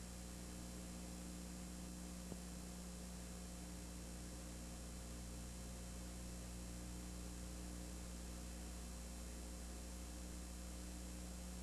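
Steady low electrical mains hum, a stack of even tones over a constant hiss, with no game sound audible. One faint tick about two seconds in.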